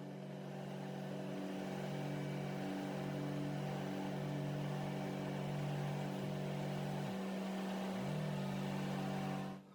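A machine engine running steadily with a low hum whose pitch wavers slightly, cutting off abruptly near the end.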